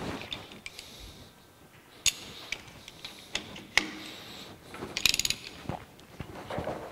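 A chuck key being fitted to and turned in the jaw screws of a four-jaw lathe chuck: scattered sharp metal clicks, with a quick rattling run of clicks about five seconds in.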